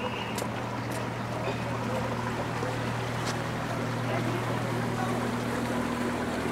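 Motor cruiser's engine running slowly as the boat eases into a lock, a steady low hum.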